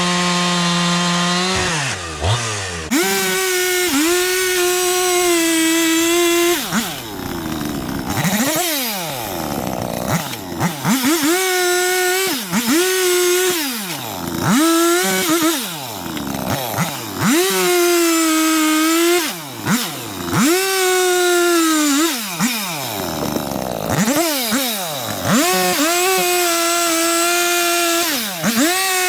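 Two-stroke gasoline chainsaw revving repeatedly to full throttle, each burst held one to three seconds with slight dips in pitch as the chain bites, then dropping back, as it cuts through firewood.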